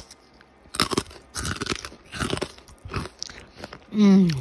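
Crunchy food being chewed with the mouth right at the microphone, about three crunching chews every two seconds. Near the end comes a loud 'mm' hum that falls in pitch.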